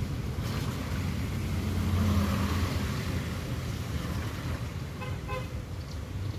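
A car's engine and road noise, a steady low rumble with hiss that swells about two seconds in. About five seconds in comes a brief string of short beeps.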